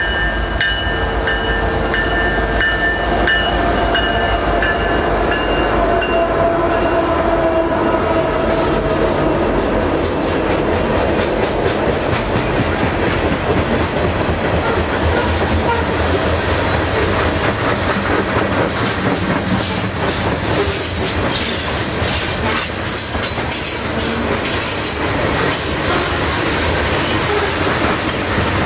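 Diesel freight locomotives passing, their drone falling slowly in pitch as they go by, then a long string of coal hopper cars rolling past with a steady wheel-on-rail rumble and rapid clicking of the wheels.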